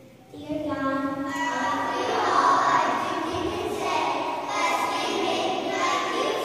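A group of young children singing together in unison, starting about half a second in, with the sound of a large hall.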